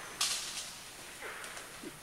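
A brief crackling rustle of leaves and stems about a quarter of a second in, fading over half a second, as a forest elephant moves in the rainforest undergrowth. A faint falling whistled call follows about a second later.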